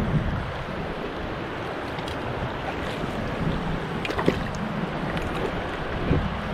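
Steady rush of a mountain river's rapids, with a few brief clicks and knocks about two, four and six seconds in.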